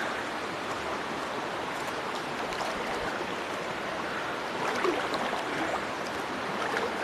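River water rushing steadily, with a few slightly louder moments about five seconds in.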